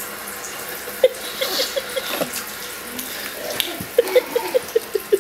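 Water running from a bathtub faucet, a steady rushing hiss, with two quick runs of short pitched chirps on top, the louder one in the last second or so.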